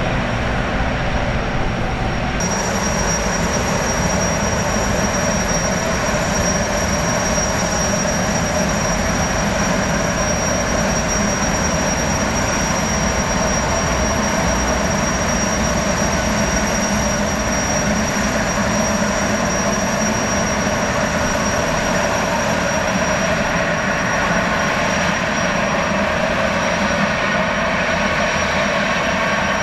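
Jetfoil's gas turbine engines running, a steady rushing noise with a thin high whine, as the boat moves off from the pier.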